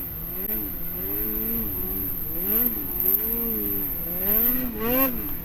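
Snowmobile engine revving up and down over and over, its pitch rising and falling every second or so.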